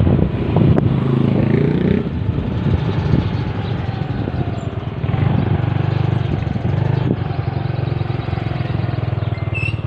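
Motorcycle engine running at low road speed, heard from the rider's seat, with a short rise in engine pitch about a second in.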